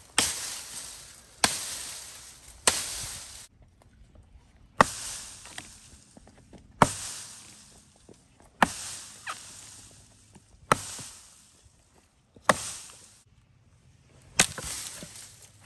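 A chopping blade hacking into the limbs of a felled tree, nine sharp strikes about every one and a half to two seconds, each followed by a brief rustle that fades.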